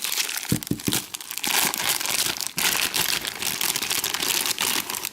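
Wrapping of a handmade soap bar being crinkled and pulled open by hand: a dense run of crackling with small ticks and tears.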